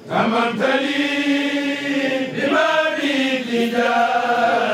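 A group of men, a Mouride kourel, chanting a khassida together in long held notes that bend from pitch to pitch, moving to a new phrase about halfway through.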